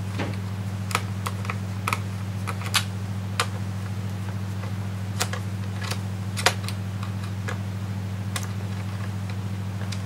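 Small screwdriver working the screws of a Dell Inspiron 1525 laptop's CPU heatsink and fan assembly, giving scattered light clicks at irregular intervals that are thicker in the first seven seconds. A steady low hum runs underneath.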